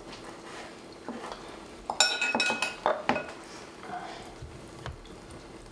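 Glassware and metal bar tools clinking as a cocktail is mixed. About two seconds in comes a quick run of ringing clinks, followed by a couple of sharper knocks.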